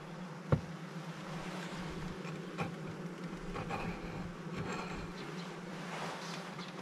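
Honeybees buzzing around an opened hive, a steady hum, with one sharp knock about half a second in and a few faint clicks later.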